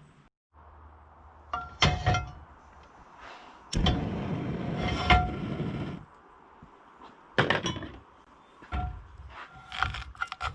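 Kitchen cookware sounds: metal clinks and knocks of utensils against a pan, several with a short ringing tone, and a louder burst of rough noise lasting about two seconds near the middle.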